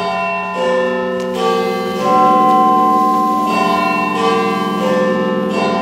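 Church bells chiming a slow tune of two four-note phrases. Each note rings on under the next.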